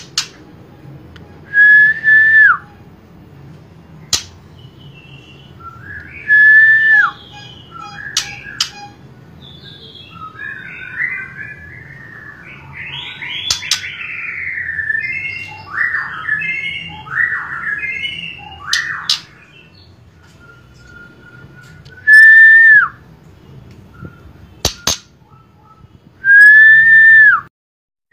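Young white-rumped shama (murai batu, F4 cross) chick, not yet a month old, singing. It gives loud, clear whistled notes of about a second each that flick down in pitch at the end, four times, with a stretch of varied warbling and chattering in the middle and a few sharp clicks.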